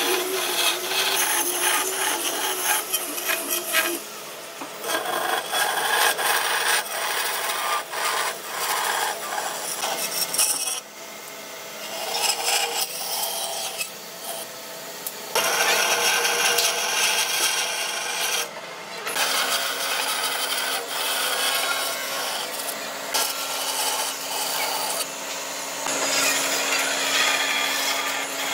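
Bandsaw blade cutting a curve through a pine board, a continuous rough rasping that dips quieter a few times. A steady motor hum comes in about two-thirds of the way through.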